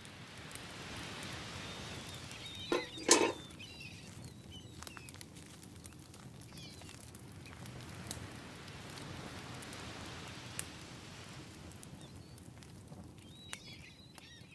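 Outdoor ambience: small birds chirping over a steady rushing hiss, with a sharp double knock about three seconds in.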